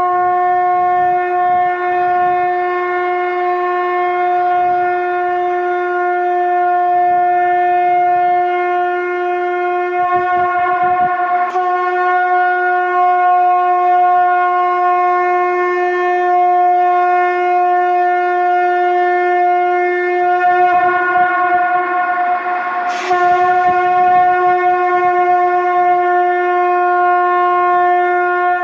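Conch shell (shankh) blown in long held blasts: one steady, loud note with a stack of overtones. A brief rushing break comes about eleven seconds in and again about 23 seconds in, as a new blast starts.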